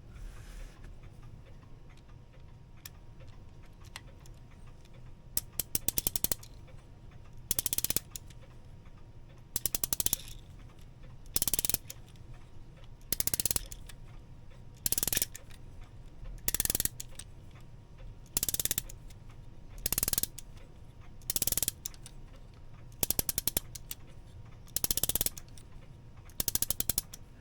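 Herschede clock movement being wound. The click and ratchet wheel make a burst of rapid clicking on each winding stroke, starting about five seconds in and repeating roughly every second and a half to two seconds, about a dozen times.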